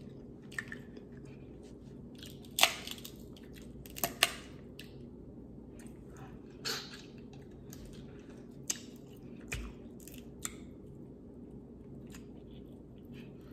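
Close-up eating sounds: seafood shells cracked and peeled by hand, and wet chewing. Short sharp crackles and clicks come every second or two over a steady low hum.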